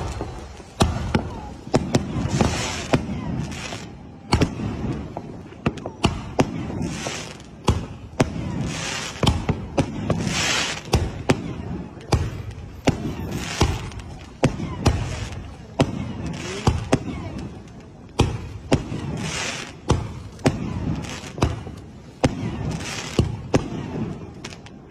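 A multi-shot fireworks cake firing tailed aerial shells in quick succession, about one a second. Each shell leaves the tube with a sharp bang and is followed by a short hiss from its sparking tail as it climbs.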